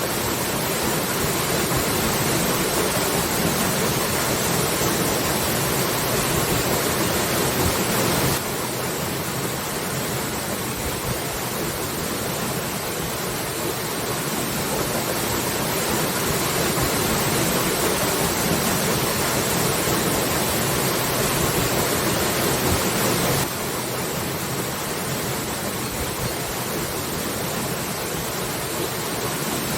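Waterfall: a steady rush of falling water. The sound shifts abruptly and drops slightly in level about eight seconds in and again about twenty-three seconds in, like cuts between recordings.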